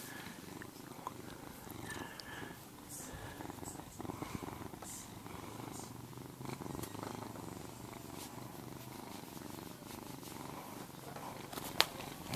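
Cat purring steadily right up against the microphone, with one sharp click near the end.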